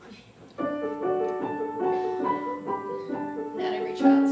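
A piano starts playing about half a second in: a simple melody of single notes over held chords, with a louder chord near the end.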